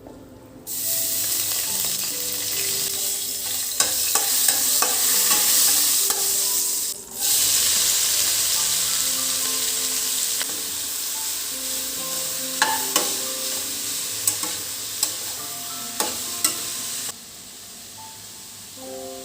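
Food frying in a pan: a steady sizzle that starts and stops abruptly, with a short break in the middle, and scattered light taps of a stirring utensil. Soft background music plays underneath.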